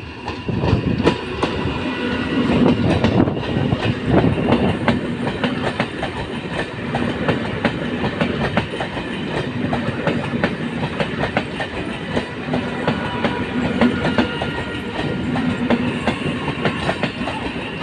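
Electric multiple-unit passenger train rolling past close by, its wheels clattering over the rail joints in a steady clickety-clack over a low rumble.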